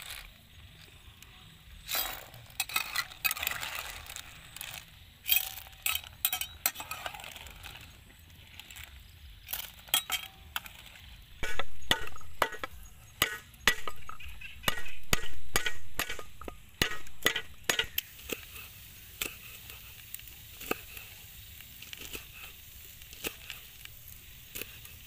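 Blood clam shells clinking against a metal spatula and the pan as they are stirred in boiling water. Then a knife chops on a wooden chopping board: a run of heavy, evenly spaced chops through the middle, and lighter, quicker cuts near the end as red chillies are sliced.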